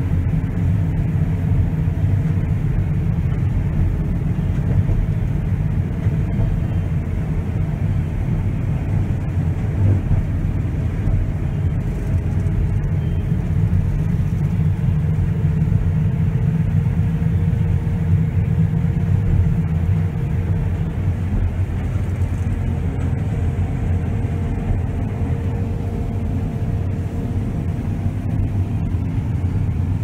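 John Deere S690 combine heard from inside its cab while harvesting wheat and unloading on the go: a steady low rumble from the engine and the threshing machinery, with a faint steady hum above it.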